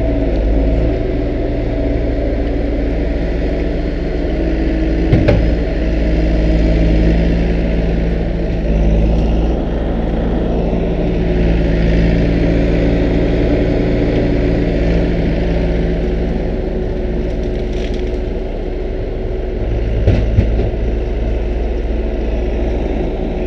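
Bobcat S300 skid-steer loader's diesel engine running close by, its pitch and level shifting as the machine works and drives. There is a sharp knock about five seconds in and another near the end.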